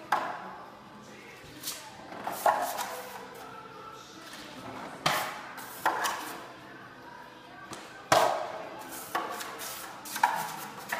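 Steel drywall taping knife clacking and scraping against a metal mud pan while loading and working joint compound: irregular sharp knocks, about eight, some with a short metallic ring.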